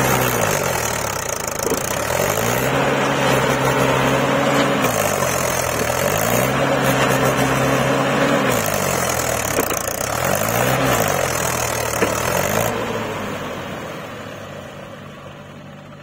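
Mahindra tractor's diesel engine straining as it pulls a loaded trolley through soft dug earth, revved up and held three times, the third only briefly, each time dropping back. It settles and fades near the end. The wheels are bogging down: the tractor is stuck in the soft ground.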